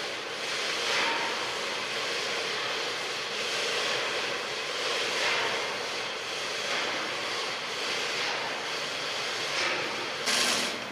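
A steady rushing hiss that swells and eases every second or two, with a louder burst of hiss near the end.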